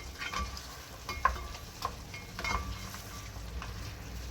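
A utensil stirring chicken feet in simmering sauce in a pan, clinking and scraping against the pan several times about a second apart, over a low, steady sizzle.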